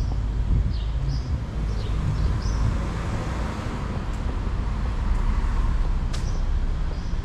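Residential street ambience: a steady low traffic rumble, with a passing vehicle swelling up in the middle and fading away. Birds give short chirps during the first three seconds, and there is one sharp click around six seconds in.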